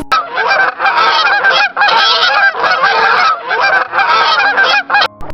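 A flock of farm birds calling over and over in dense, overlapping runs with short breaks between them. The calls cut off suddenly near the end.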